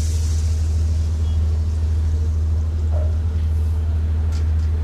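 Hot water pouring into a pan of fried mung dal and fish head, the pour trailing off about half a second in, over a steady low rumble that runs throughout.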